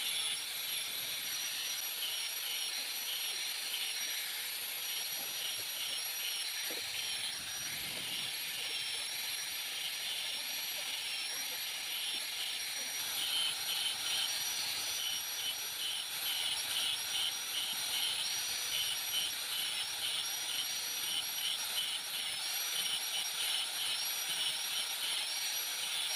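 Handheld electric angle grinder running steadily with a high-pitched whine while its disc cuts grip grooves into a wooden sickle handle. The pitch dips slightly as the disc bites, and a rhythmic rasp comes a couple of times a second as each groove is cut.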